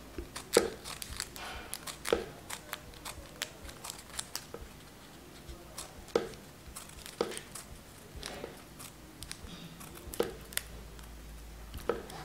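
Small scissors snipping a folded paper strip into a fine fringe: a string of short, sharp snips at an uneven pace, roughly one every half-second to second and a half, some louder than others.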